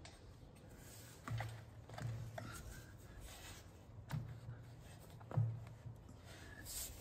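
Faint clicks and knocks of a plastic generator wheel being handled and turned on its axle during fitting, with light rustling between them. There are about five knocks, each with a dull thud under it, and the loudest comes about two-thirds of the way through.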